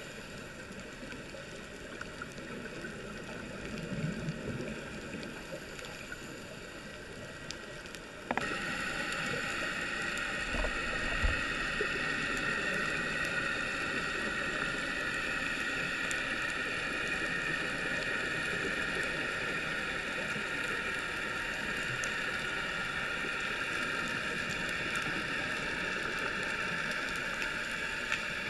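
Underwater ambient noise: a steady hiss that jumps abruptly to a louder, steadier hiss about eight seconds in.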